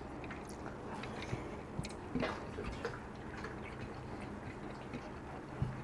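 Quiet eating sounds of fingers mixing rice and curry on a plate, with scattered faint clicks.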